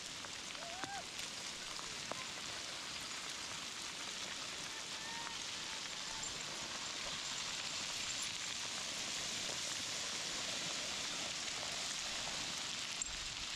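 Fast river water rushing, a steady unbroken hiss.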